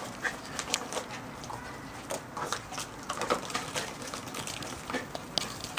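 Poodle puppies scampering in play, with irregular light taps and scuffles from their paws and from hollow plastic ball-pit balls being knocked about.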